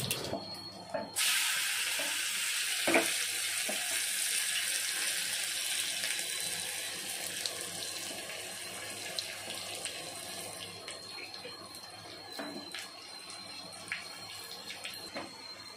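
Crushed garlic hits hot oil in a small pan and starts sizzling sharply about a second in. The sizzle then slowly dies down as the garlic fries, with a few faint pops.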